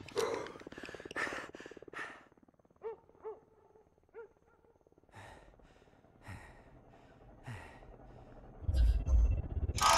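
Soft breaths and sighs from a man, with a few short pitched vocal blips, then a low rumble with heavy thuds near the end.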